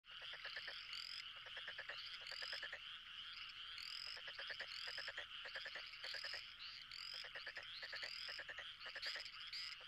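Dense chorus of animal calls: rapid pulsing trills under a steady band of calling, with short rising chirps repeating about once a second. It starts abruptly.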